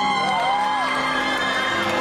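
Music playing over an arena audience cheering, with several high whoops rising and falling in the first second.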